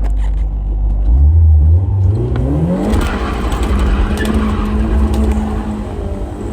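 Car engine idling, then revving up hard about a second in and holding at high revs under full throttle, with rising tire noise from about three seconds in.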